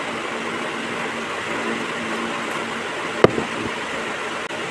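Steady background hum and hiss, with one sharp knock about three seconds in as the plastic inline skate is handled.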